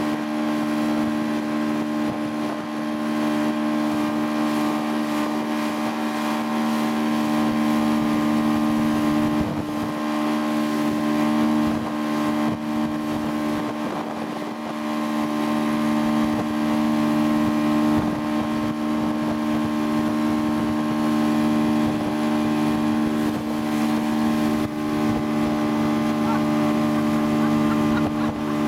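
Motorboat engine running steadily at speed while towing, a constant drone, over the rush of water from the wake.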